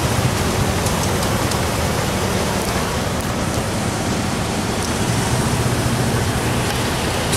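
Steady rushing noise over the low, even drone of an idling engine on the open deck of a river car ferry.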